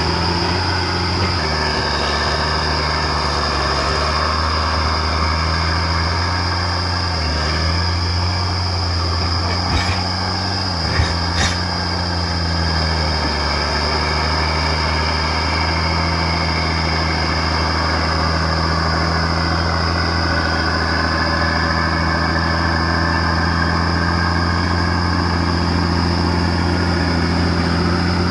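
Komatsu D50A crawler bulldozer's diesel engine running steadily under load while pushing material. A steady high whine runs over it. The engine pitch sags briefly twice, and a few sharp knocks come near the middle.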